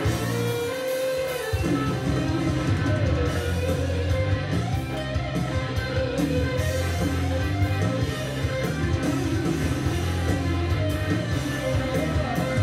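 Guitar-led music played back over two-way hi-fi loudspeakers from a Yamaha DVD player through a Pioneer amplifier, picked up by the microphone in the room. The bass comes in about a second and a half in.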